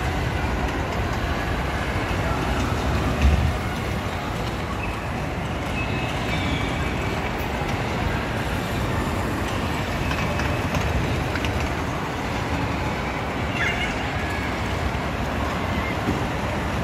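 Electric bumper cars running on the rink floor: a steady rolling din with one thump about three seconds in.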